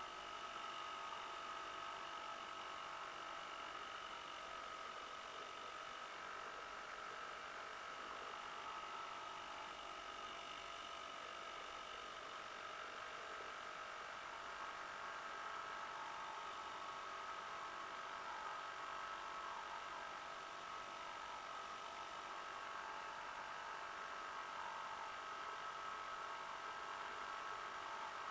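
Fifty-year-old Johnson 2 HP Seahorse two-stroke outboard motor running steadily under way, an even, unbroken drone.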